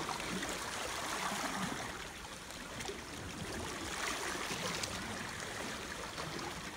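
Sea water washing and swirling against the rocks of a gully, a steady rushing wash.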